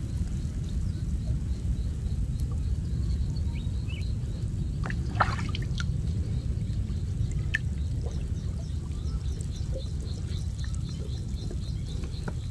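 Water splashing and dripping as a person wading chest-deep lifts and works a wet gill net, with a sharper splash about five seconds in, over a steady low rumble. A faint high chirp repeats about three times a second.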